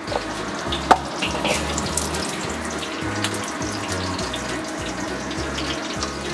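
Sliced garlic sizzling in hot oil in a wok, a steady frying hiss with a few sharp crackles, the loudest about a second in.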